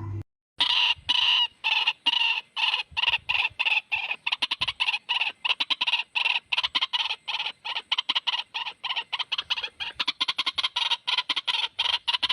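White-breasted waterhen (ruak-ruak) calling in a long run of short, harsh repeated notes, played back as a lure call. The notes come slowly at first, then quicken to several a second.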